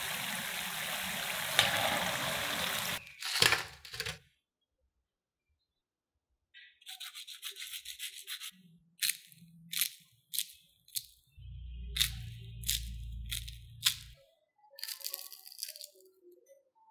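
Cornstarch-and-mashed-potato sticks sizzling in hot deep-frying oil, a steady crackling hiss that cuts off after about three seconds and is followed by a few clicks. After a short silence come a run of sharp crackles and rubbing sounds as the fried, crusted potato sticks are handled and broken open by hand.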